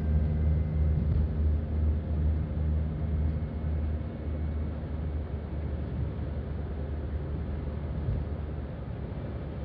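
Steady road noise of a moving car heard from inside the cabin by a dashcam: a low engine and tyre drone that eases off a little about four seconds in.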